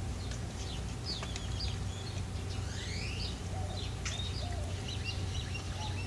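Birds chirping and calling, with a few short rising whistles about halfway through, over a steady low hum.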